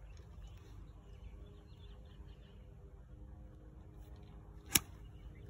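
A golf iron striking the ball: one sharp click about three-quarters of the way in, the loudest sound by far, over a faint steady background rumble.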